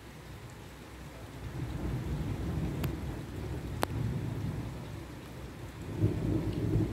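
Thunder rumbling low, swelling about two seconds in, easing, then building again near the end, with two sharp ticks in between.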